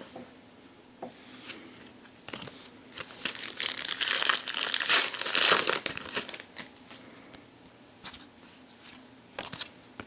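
Foil trading-card pack wrapper being torn open and crinkled, with a dense crackling that peaks in the middle, then a few light handling clicks.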